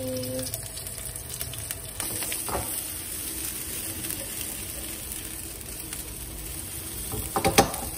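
Chopped garlic sizzling in hot oil in a frying pan, a steady hiss that grows a little stronger about two seconds in. A few sharp knocks come near the end.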